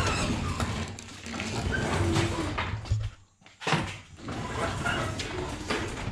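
Sears Craftsman chain-drive garage door opener running as the door closes, with a steady motor hum. The motor stops about three seconds in, at its close limit, and a short knock follows.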